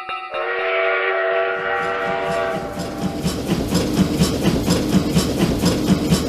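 Train sound effect: a train horn sounds for about two seconds, then the wheels clack over the rail joints in a quick, steady rhythm as the train passes.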